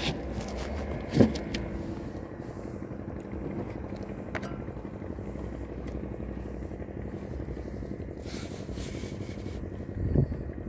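Fishing boat's engine running steadily at an even drone, with a short thud about a second in and another near the end.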